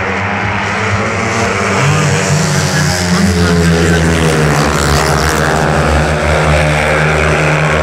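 Long-track racing motorcycles, 500 cc four-stroke singles, running flat out as the pack laps the sand oval, their engine note swelling over the first two seconds and then holding steady.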